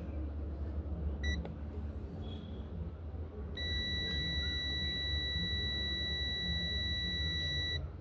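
Digital multimeter's continuity buzzer: one short beep about a second in, then a steady high beep held for about four seconds from about three and a half seconds in. The beep sounds while the probes bridge the terminals of a washing-machine part, signalling a closed circuit with low resistance. A low steady rumble runs underneath.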